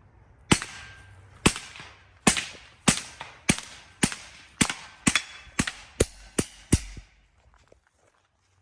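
Semi-automatic air rifle fired in a quick string of about a dozen shots, roughly two a second, each a sharp crack, stopping about seven seconds in.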